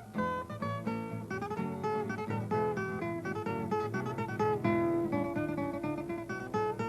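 Incidental background music: an acoustic guitar plucking a quick run of notes.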